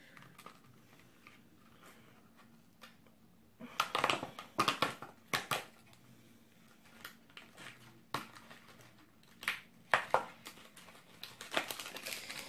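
Cardboard snack box being opened by hand and a plastic-wrapped bar taken out: irregular bursts of crinkling and crackling that start about three and a half seconds in.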